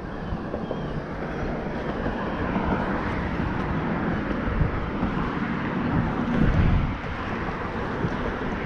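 Highway traffic passing: a steady rush of tyre and engine noise that swells and eases, with wind buffeting the microphone.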